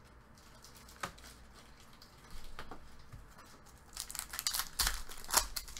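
Trading cards being handled and set down on a table mat: one light click about a second in, then soft rustling and clicks that grow busier in the last two seconds.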